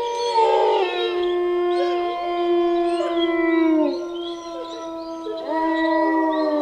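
Wolves howling in chorus: long, held howls that drop in pitch as they end, with higher, wavering voices over them. A new howl rises in about two-thirds of the way through.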